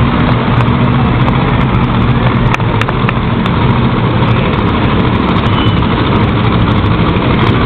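Monster truck engines running loud and steady as a truck rolls slowly across the arena floor.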